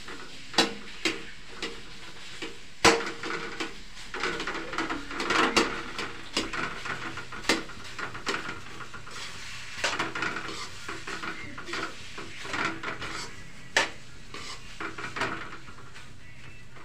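Perforated metal spatula scraping and clinking against a metal kadhai as mawa (khoya) is stirred and fried. Irregular sharp clinks, the loudest about three seconds in, fall between stretches of scraping.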